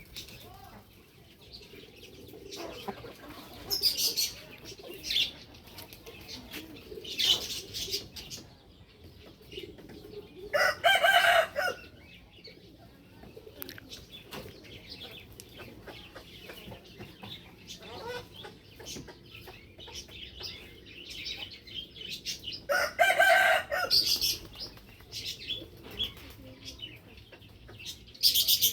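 Rooster crowing twice, each crow a loud pitched call of about a second and a half, the first about ten seconds in and the second about twenty-three seconds in, amid scattered short, high bird calls and clucking.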